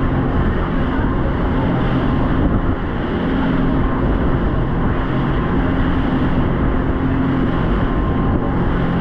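Boat engine running steadily at cruising speed, a constant low hum under a loud rushing noise.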